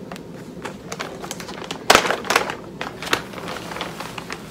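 Plastic packaging bag crinkling and rustling as it is opened and the wig is pulled out, irregular sharp crackles with the loudest about two seconds in.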